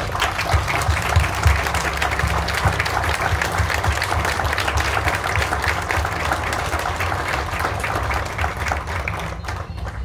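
A crowd applauding: many hands clapping that starts at once and dies away near the end.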